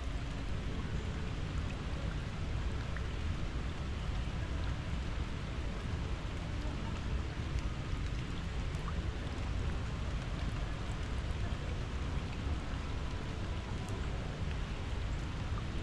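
Steady rain falling, an even hiss with a low steady rumble underneath.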